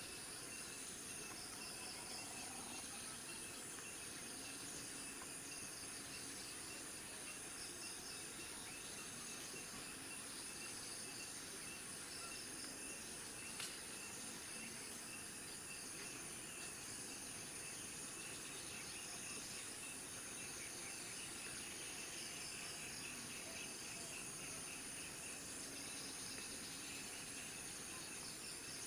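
Steady chorus of insects: a constant high-pitched buzz with repeating bursts of chirping over it. A single faint click about fourteen seconds in.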